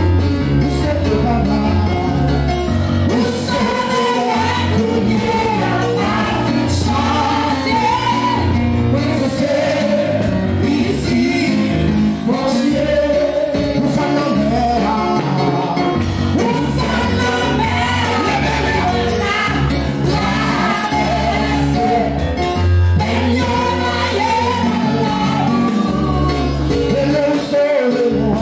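Congregation singing a Haitian Pentecostal worship song together, over amplified instrumental accompaniment with a deep bass line.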